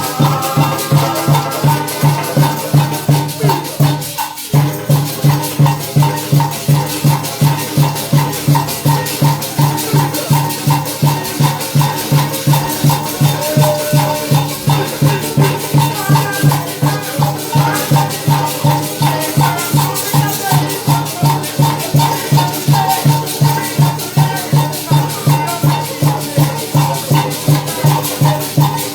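Parang band music with a steady, evenly pulsing beat and maracas shaking. The playing drops out briefly about four seconds in, then carries on.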